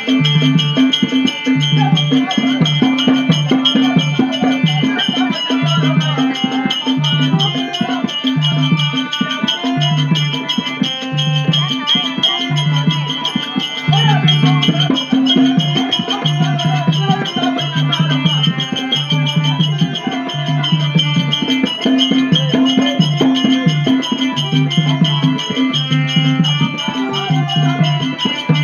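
Live accompaniment for a Tamil street drama: a drum beats a steady repeating pattern, about one low stroke a second, under sustained melodic tones, with rattling percussion throughout.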